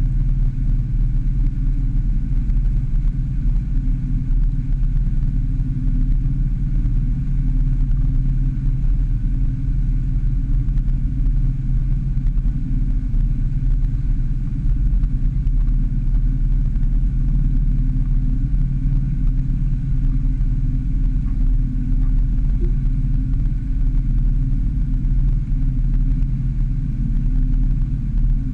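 A 150-horsepower outboard motor running at steady speed, pushing the boat along: a steady low drone.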